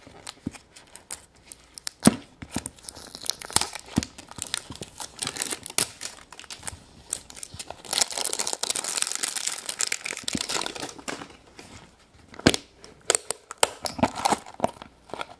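Clear plastic wrapping being peeled and torn off a large plastic Easter egg, crinkling throughout, with a louder stretch of continuous tearing about halfway through and a few sharp clicks. Near the end, a cellophane bag of jelly beans crinkles as it is handled.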